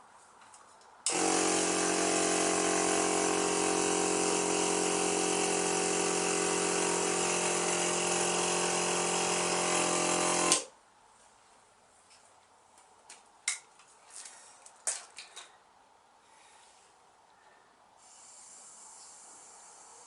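Small electric air compressor running steadily for about nine seconds, then cutting off abruptly, putting a little air into the inner tube of a 30 x 3.5 inch clincher tyre. A few sharp clicks follow.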